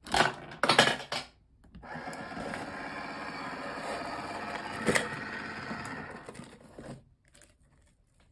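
Nissin Cup Noodle home vending machine: a coin drops in with a few sharp clatters, then the machine's small dispensing motor runs steadily for about five seconds, with one sharp knock partway through, as a cup of noodles is pushed out into the tray.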